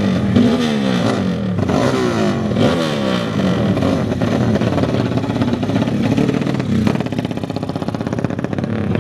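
Racing motorcycle engines revving, with the throttle blipped up and down over and over and several engines overlapping; after about seven seconds the revving eases to a steadier, lower run.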